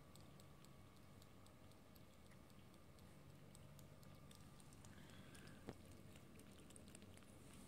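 Faint, quick irregular clicking of cats chewing and licking up minced chicken breast, with one sharper click a little past halfway.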